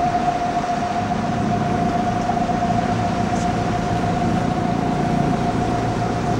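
A boat's inboard engine running steadily while under way, a low drone with a constant high whine over it; the drone grows a little stronger about two seconds in.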